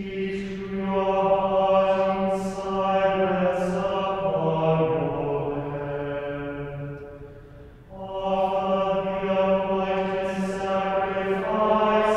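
Choir voices chanting a psalm in unison plainsong. The voices hold a long recitation on one note, fall to a lower cadence, take a short breath-pause about halfway through, then start the next half-verse on the same reciting note.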